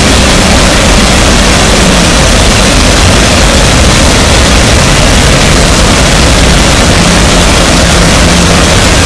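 Harsh noise wall music: a loud, unbroken wall of noise filling the whole range from deep bass to high hiss, with a shifting low rumble underneath.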